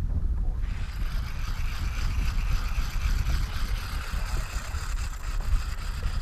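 Fishing reel being cranked, a steady geared whir starting about half a second in and stopping near the end, over wind buffeting the microphone.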